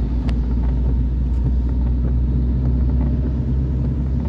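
Car cabin road noise while driving on a rain-wet road: a steady low rumble of engine and tyres, with a few faint ticks.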